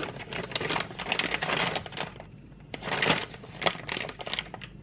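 Clear plastic parts bags crinkling and rustling as they are handled in a cardboard box, in irregular crackly bursts with a short lull about two seconds in.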